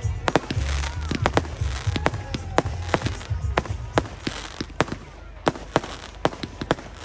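Fireworks going off: an irregular run of sharp bangs and cracks, some louder than others, with a low rumble under them for the first two or three seconds.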